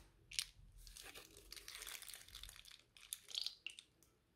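Thin plastic piping bag crinkling and crackling in the hands as it is squeezed to push slime out. There is a sharp crackle about half a second in, a longer run of crinkling, and a few more crackles near the end.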